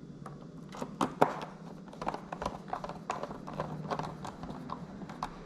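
Small clicks and taps of plastic parts and connectors being handled and fitted back together on a Tesla Wall Connector, with two sharper knocks about a second in.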